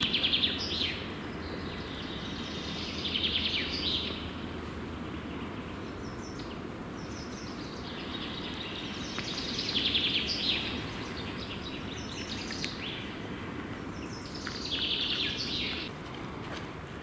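A songbird singing short trilled phrases, four of them a few seconds apart, over a steady low outdoor background noise.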